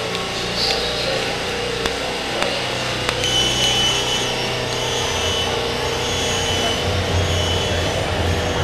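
Shanghai Metro train approaching along the platform behind the screen doors: a steady rumble with a thin high whine that starts about three seconds in, and a low rumble that grows stronger near the end.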